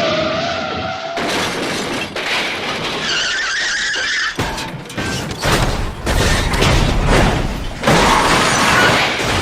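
Car crash sound effect: tyres squeal, then a run of crashing impacts with shattering glass and clattering debris, loudest about halfway through and again near the end.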